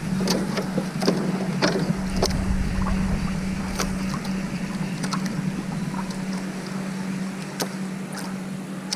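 Small outrigger fishing boat afloat on calm water: water lapping at the hull and wind on the microphone, with scattered light clicks and knocks and a steady low hum throughout.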